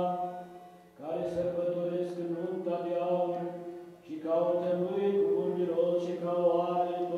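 Eastern Orthodox liturgical chant: a man's voice holds long, drawn-out notes in melismatic phrases, pausing briefly about a second in and again near four seconds.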